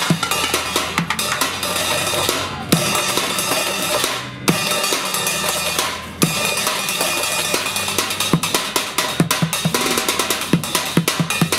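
Drumsticks beating a fast techno-style rhythm on upturned plastic buckets, metal pots, pans and cymbals, a steady metallic clatter over low thuds. There are two short breaks a little before the middle, and the low hits come thicker near the end.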